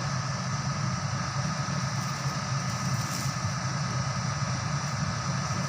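Excavator's diesel engine running steadily with an even, unbroken drone.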